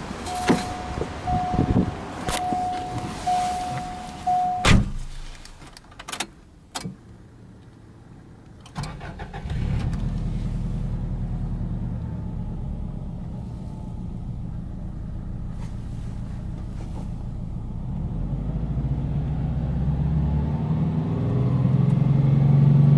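A car's warning chime beeps five times, then a door shuts with a thump a little under five seconds in, followed by a few clicks. About nine seconds in, the Subaru GC8 Impreza WRX's turbocharged 2.0-litre flat-four starts and runs at a steady idle of about 1,500 rpm. It is then raised to a steady hold at about 3,000 rpm near the end.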